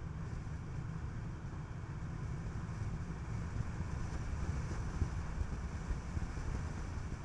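Steady road and wind noise of a Skoda Kodiaq driving: a low rumble with a fainter hiss above it.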